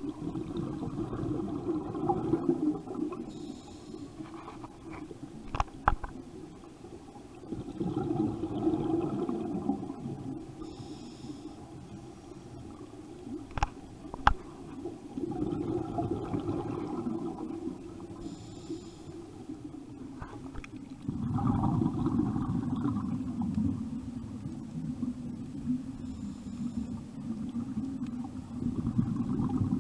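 Scuba diver breathing through a regulator underwater: a short high hiss on each inhale, then a longer low rush of exhaled bubbles, repeating about every seven seconds. A few sharp clicks, two of them close together just before the middle.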